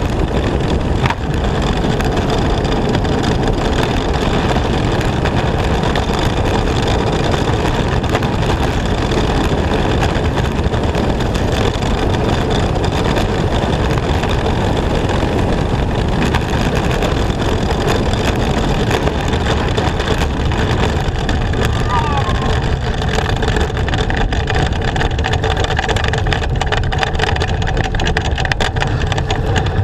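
A bobsled running at speed down an iced track: a loud, steady rumbling rush of the runners on the ice mixed with rushing air, heard from on board the sled.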